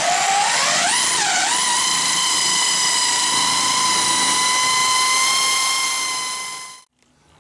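Electric paddle mixing drill stirring a bucket of plasterboard adhesive. Its motor whine climbs and wavers in pitch in the first second or so, then holds steady before winding down and stopping near the end.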